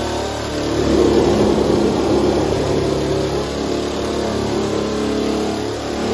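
Parkside electric nibbler running steadily, its punch chewing through the van's metal side panel as it cuts along the marked line.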